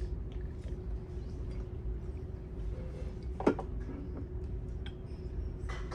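Low steady background hum with a faint steady tone running through it, and one brief sharp sound about three and a half seconds in.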